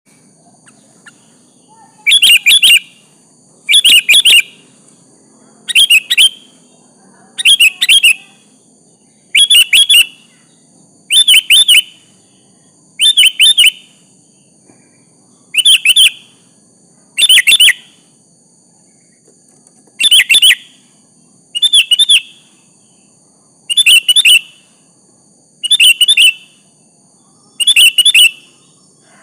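Sooty-headed bulbul (kutilang) calling: a short, loud, chattering phrase repeated about every two seconds, given as a call to a rival.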